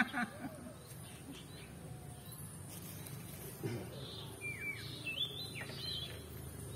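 A few short, falling bird chirps about four to five seconds in, over a faint steady low hum of outdoor ambience.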